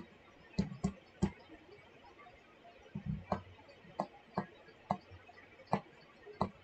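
Stylus tapping and clicking on a tablet's screen while handwriting a word, about ten sharp, faint taps at an irregular pace.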